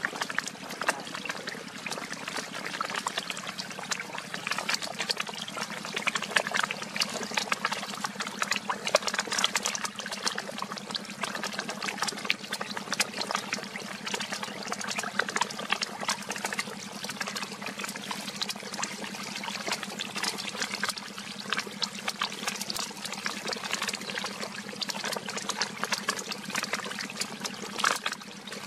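Many small snakeheads splashing at the water surface as they feed: a dense, continuous crackle of small splashes, with a steady low hum underneath.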